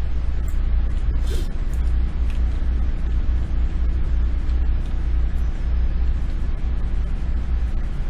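Steady low rumble of background noise, with a few short clicks between about half a second and two seconds in.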